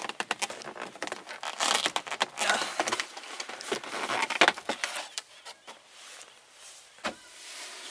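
Thin clear plastic clamshell food container being pried open: rapid crackling and clicking of the plastic lid for about five seconds, then a few single clicks.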